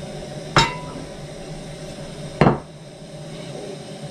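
Two sharp metallic knocks on the flat metal chapati pan set on a gas burner, about two seconds apart; the first leaves a brief ring.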